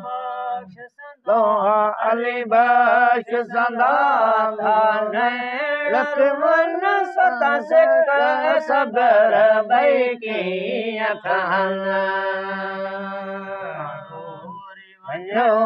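Men's unaccompanied voices chanting a Sindhi maulood, a devotional song. A lead voice sings long, wavering, ornamented phrases over a steady lower note held beneath. The singing breaks off briefly about a second in.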